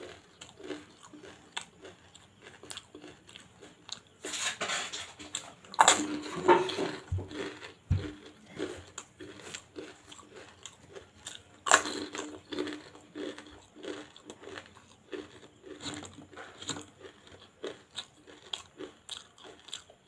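Crisp fried fuchka (pani puri) shells being bitten and chewed, with loud crunches about four to seven seconds in and again around twelve seconds, and smaller crunches throughout.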